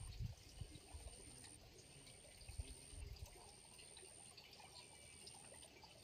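Faint pond-side ambience, close to silence: trickling water and a high-pitched insect trill that repeats in pulses a little over a second long, with a few low bumps. It cuts off suddenly at the end.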